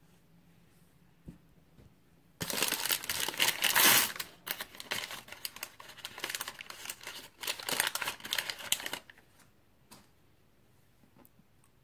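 Foil blind-bag packets crinkling as they are handled, with some tearing. The noise starts a couple of seconds in, is loudest soon after, and stops about three seconds before the end.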